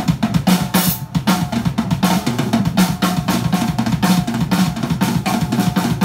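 Drum kit played live in a rock song: a steady run of bass drum, snare, hi-hat and cymbal hits, several a second.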